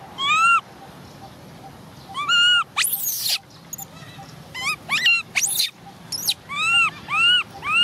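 Baby macaque crying: a series of short, arched, high-pitched calls in groups of two or three, with a few sharper rising squeals among them.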